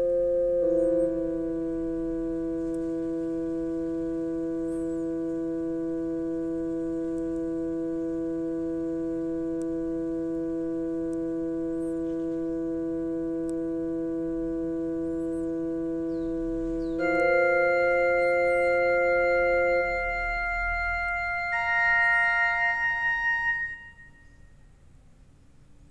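Yamaha PSR-E263 portable keyboard sounding long, steady held chords in a sustained voice. One chord holds for about sixteen seconds, then the chord changes about 17 s in and twice more. The sound stops near the end, like the close of a song.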